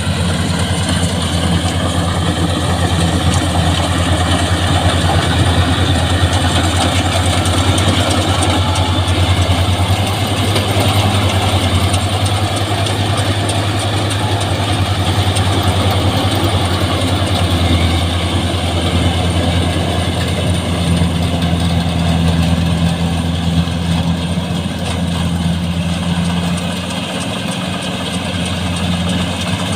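Rice combine harvester running steadily, a constant low engine hum.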